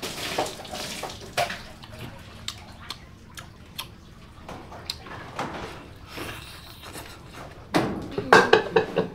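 Eating at a floor meal: chewing and sucking meat off braised goat knuckle bones, with scattered light clicks of chopsticks and china bowls. Near the end a louder, rapidly pulsing sound comes in.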